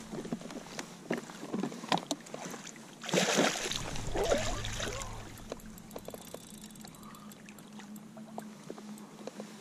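Water splashing as a fish thrashes in a landing net held beside an inflatable kayak, a loud burst about three seconds in that dies away over the next two seconds. Small knocks and taps of gear on the kayak come and go around it.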